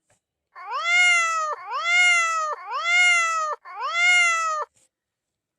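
Domestic cat meowing four times in a row, each meow about a second long and rising in pitch at its start.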